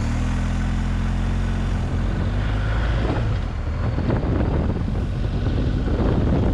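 Motorcycle engine running on the move, a steady low hum at first. From about two and a half seconds in, wind noise buffeting the microphone grows over it.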